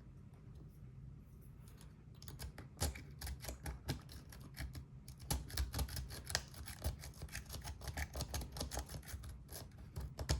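Rapid, irregular metallic clicking and scratching of a pick raking the pin stack of a Bovii dimple lock. It starts about three seconds in and keeps on in quick runs.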